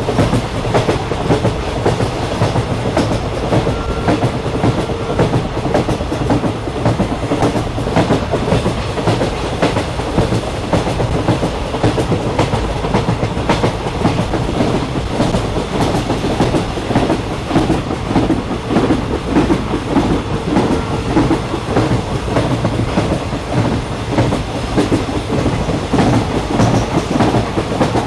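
Train running along the track: a steady rumble with continual clatter and rattle from the wheels and carriages.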